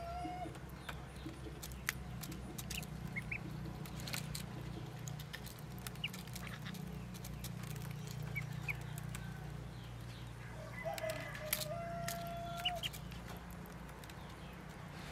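Ducklings feeding: sharp clicks of bills pecking at the feed dish and a few short high peeps, over a steady low hum. A longer level-pitched bird call sounds right at the start and again about eleven seconds in.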